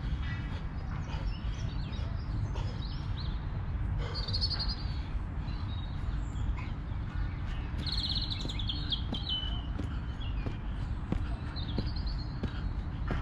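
Songbirds chirping in a few short bursts, about four, eight and twelve seconds in, over a steady low outdoor rumble.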